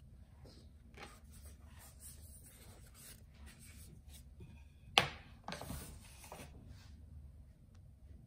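Hands rubbing and patting soft dough balls on a wooden tray, then a sharp wooden knock about five seconds in and a softer one just after as the tray of dough is moved off the bamboo cutting board.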